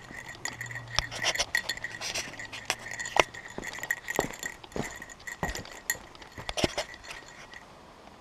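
Footsteps of someone walking and starting up stone steps, with a light metallic clinking and ringing in time with the steps from something small carried on the body. The clinks come irregularly, about one or two a second.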